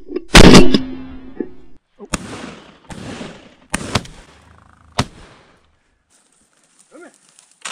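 Shots from a 12-gauge Beretta A300 semi-automatic shotgun: one very loud blast about a third of a second in, then sharper, quieter cracks about four and five seconds in.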